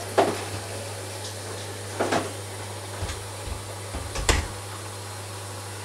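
Three sharp knocks about two seconds apart, with a few softer bumps between the last two, as things are handled during bucket filling. A steady low hum runs underneath.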